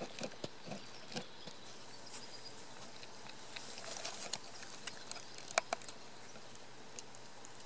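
Cat eating wet canned cat food close up: scattered small wet smacks and clicks of chewing and licking, with two sharper clicks about five and a half seconds in.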